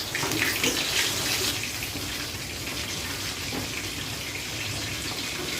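Chicken pieces frying in hot oil, a steady sizzle with crackling pops.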